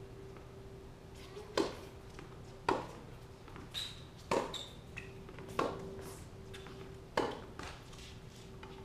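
Tennis rally: five sharp pops of racquets striking the ball, spaced about a second to a second and a half apart, with two short high squeaks near the middle and a steady faint hum underneath.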